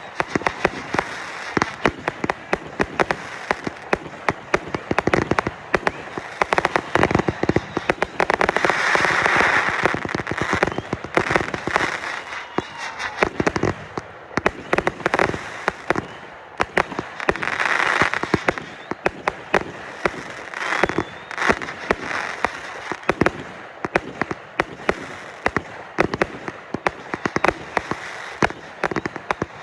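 Consumer fireworks going off in rapid succession: a dense run of bangs and crackling, thickening into heavier crackling barrages about nine seconds in and again around eighteen seconds.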